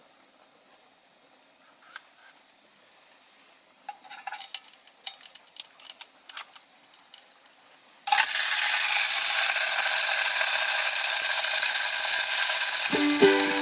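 Scattered light clicks and rustles of handling, then about eight seconds in a loud, steady sizzle starts suddenly as food frying in a hot pan, with plucked music coming in near the end.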